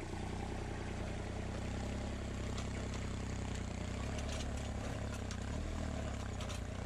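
Compact tractor engine running steadily under load while pulling a three-bottom reversible mouldboard plough through soil; it is heavy going for the tractor.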